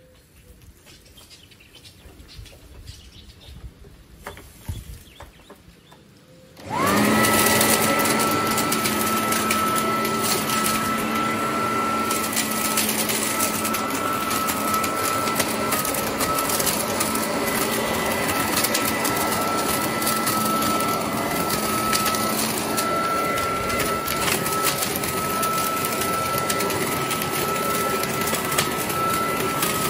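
Parkside PLS 2600 B2 electric leaf blower/vacuum switched on about seven seconds in, after a few faint handling knocks. Its motor and fan spin up almost at once to a steady high whine over a loud rush of air, and it keeps running evenly.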